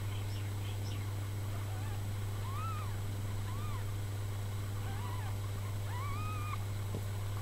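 Newborn kittens mewing: several short, high, rising-and-falling cries spaced a second or so apart, the last one longer, over a steady low hum.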